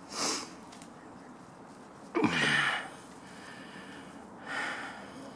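A person's breathing close to the microphone: three short breaths about two seconds apart, the middle one the loudest, a sigh with a low falling voice in it.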